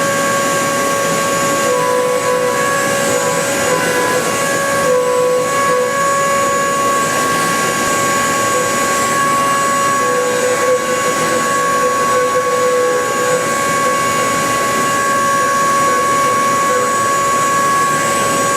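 Milltronics CNC milling machine cutting metal on a high-efficiency machining toolpath: a steady, high-pitched cutter whine over a hiss. The pitch shifts slightly every few seconds.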